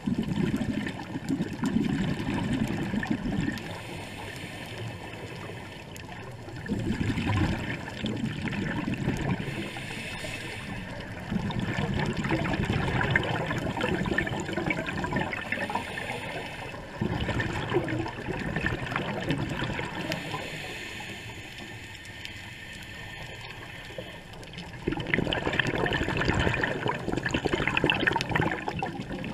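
Scuba regulator breathing underwater: about five long rushes of exhaled bubbles, a few seconds apart, with a fainter hiss of inhalation in the quieter gaps between them.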